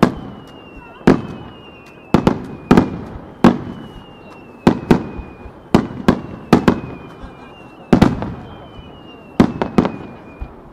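Starmine fireworks display: shells bursting in sharp bangs, a new one every half second to a second and sometimes two close together, each trailing off. Over them come several thin whistles, each sliding slightly down in pitch for about a second.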